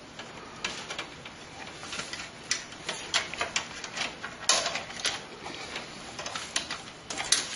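Irregular clicks, taps and rattles of hands handling cables and plastic connectors inside a PC case.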